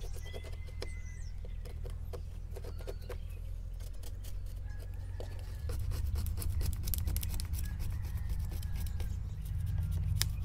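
Old foam rubber weather seal being scraped and picked off a camper storage-compartment door frame with a razor-blade scraper: a string of short, irregular scratchy strokes over a steady low rumble that gets louder about halfway through.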